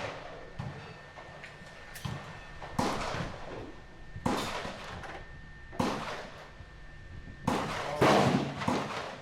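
Gunshots from firearms on a shooting-range firing line, each a sharp crack with a short echoing tail, coming every second or so at uneven spacing. The two loudest land close together near the end.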